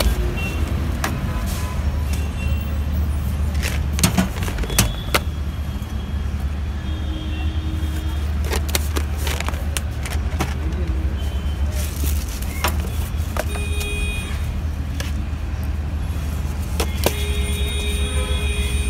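Steady low rumble of street traffic, with scattered sharp clicks and knocks and a few brief high tones, the longest near the end.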